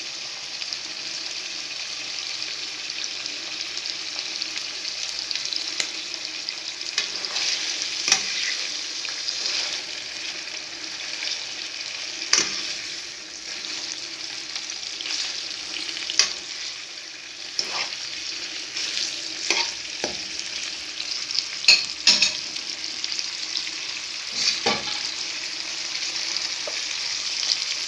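Beef liver and onions frying in oil in a pan over low heat: a steady sizzle, with sharp clicks now and then, most of them in the second half.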